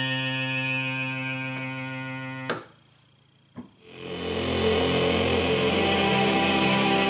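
Rhodes Chroma polyphonic analog synthesizer playing patch demos. A sustained chord fades slowly and cuts off with a click about two and a half seconds in. After about a second of near silence and another click, a new patch swells in with a low drone and shifting notes above it.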